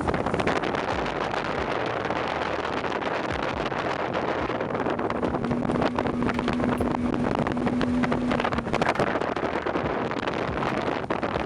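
75 hp Mercury outboard motor running as the boat cruises, with heavy wind buffeting the microphone. A steady hum holds for a few seconds in the middle.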